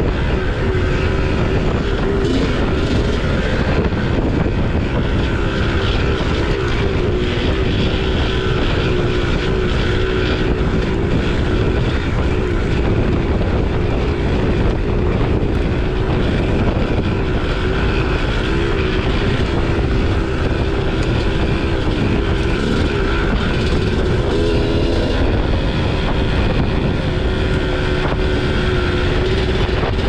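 2001 Kawasaki KX250 two-stroke dirt bike engine running under riding load, holding fairly steady revs with small rises and dips, with wind noise on the microphone.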